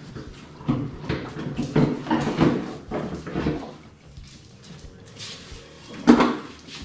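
Mercury FourStroke outboard's cowling being handled as it is unlatched and lifted off: irregular knocks and scrapes of the hard cover, with a single louder knock about six seconds in.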